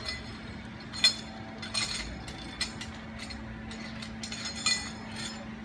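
Metal safety clip and harness hardware clinking against a steel cable on a ropes-course bridge: several sharp clinks with a short ring, the loudest about a second in.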